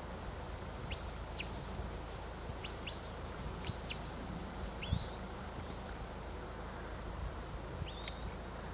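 Shepherd's whistle commands to a working sheepdog: a string of high, clean whistled notes, some sweeping sharply up and held briefly before dropping, others short upward flicks, spread across several seconds over a steady low rumble.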